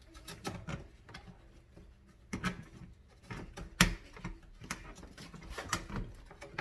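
Plastic connectors and tubes of a no-tools fabric shoe rack clicking and knocking irregularly as the parts are handled and pushed together, with one louder sharp knock a little past halfway.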